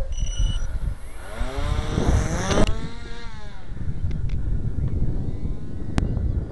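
Motor and propeller of a small radio-controlled powered paraglider whining, its pitch climbing steeply for about a second before cutting off sharply, then a fainter whine sinking away. Low wind rumble on the microphone throughout.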